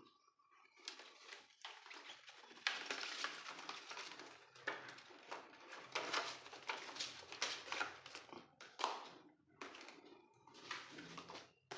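Packaging rustling and crinkling as it is handled, in irregular bursts that come and go.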